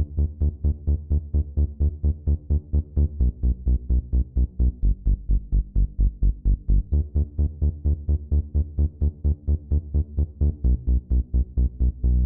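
Electronic background music with a steady pulsing beat, about four pulses a second, heavy in the bass.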